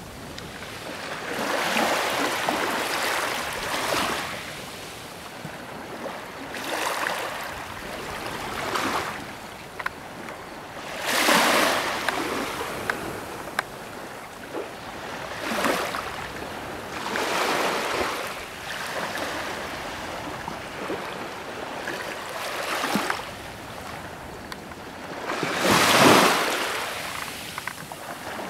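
Sea water washing and breaking in repeated swells every two to four seconds, with two louder surges, one near the middle and one near the end.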